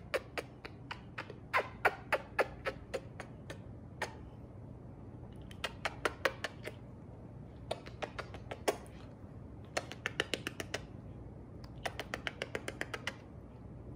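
Repeated smacking kisses on a small dog's head, short sharp lip clicks coming in bursts: a few spaced ones, then quick runs of several a second.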